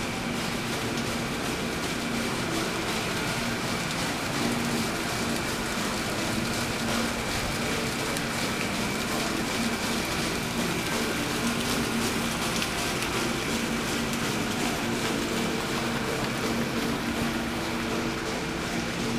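Steady hiss of water running over a large decorative water wheel, mixed with the even low hubbub of a big indoor hall.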